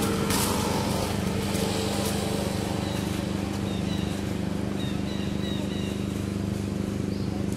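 Steady low hum of a running engine, unchanging in pitch, with faint short high chirps over it from about three seconds in.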